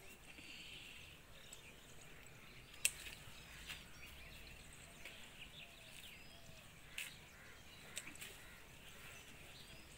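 Scissors snipping flower stems: about four short, sharp clicks, the loudest about three seconds in. Faint bird chirps run underneath.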